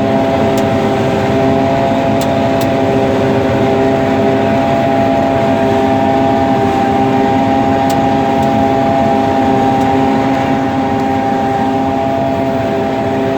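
Combine harvester running steadily while cutting soybeans: an even, unbroken machine drone with several held tones.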